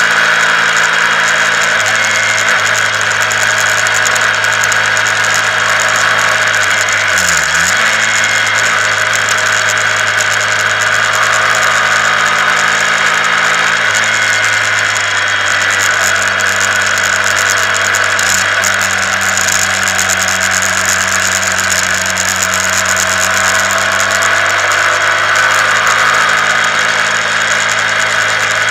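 Honda CBR125R's single-cylinder four-stroke engine running at a steady cruise under continuous rushing wind and road noise; about seven seconds in the engine note dips briefly and climbs back.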